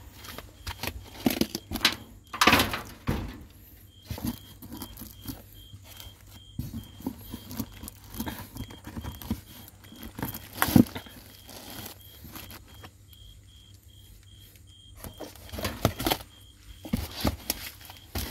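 Irregular rustling, clicks and knocks of objects and plastic being handled and moved, with louder knocks about two and a half seconds in and around ten seconds in. A faint high tone pulses about three times a second underneath.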